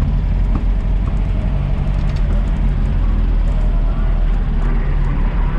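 Vehicle engine running steadily as a low rumble, with voices in the background.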